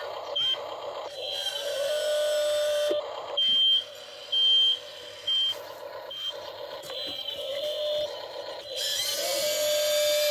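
Electric gear motors of a toy RC excavator whining as the arm and bucket move, twice gliding up to a steady pitch, while the toy's electronic sound module gives several short high beeps at uneven intervals.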